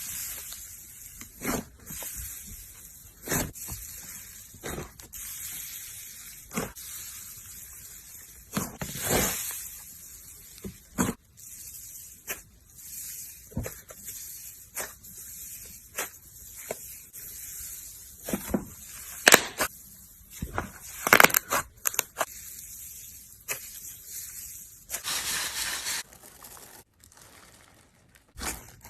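Slime being squished and handled by hand: irregular wet clicks and pops over a steady high hiss, with a longer crackly stretch near the end.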